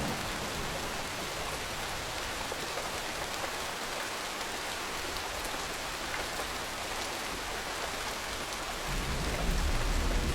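Steady rain falling, a continuous even hiss, with a low rumble of thunder swelling in near the end.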